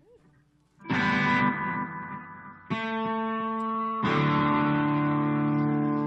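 Guitar playing three strummed chords, the first about a second in, the next near three seconds and the last at four seconds, each left to ring out.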